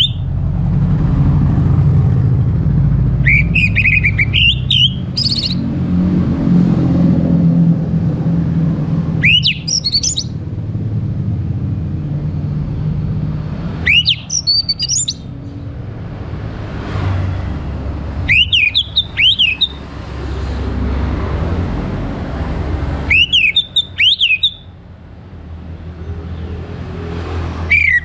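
A captive orange-headed thrush singing short phrases of quick rising whistled notes, one about every four to five seconds. Between and under the phrases runs a steady low engine rumble.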